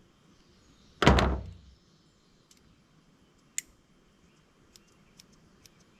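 One loud thunk about a second in, then a single sharp click and a few faint ticks, from the metal parts of a multi-tool being handled and fitted together.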